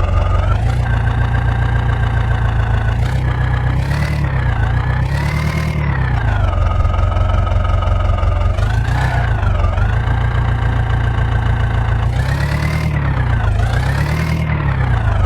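Heavy diesel engine running under changing load, its pitch rising and falling again every few seconds as it is revved up and eased back, with a few short bursts of rushing noise.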